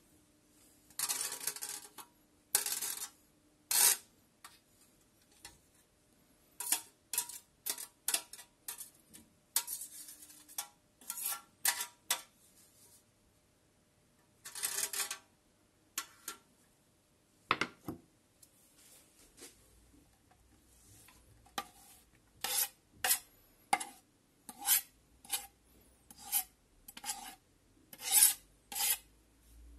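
A knife blade scraping grated carrot off the metal face of a stainless steel box grater in a series of short scraping strokes. The strokes come irregularly at first and settle into about one to two a second near the end.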